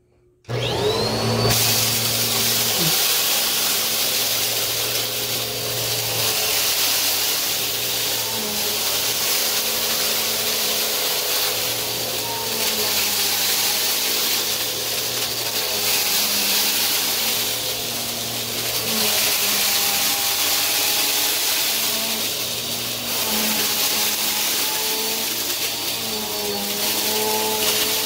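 Bissell vacuum cleaner switching on about half a second in, its motor whine rising as it spins up, then running steadily while it is pushed over a rug, sucking up gritty debris. The motor pitch dips and recovers again and again as the cleaner head moves back and forth.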